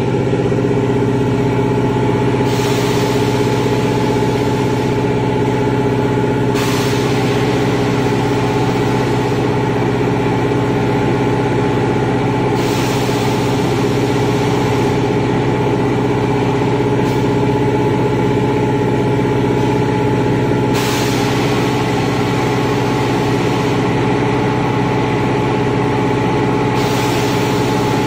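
A 5-gallon bottled-water filling machine running: a steady hum of its pumps and motors, with a hiss that switches on for a few seconds and off again several times.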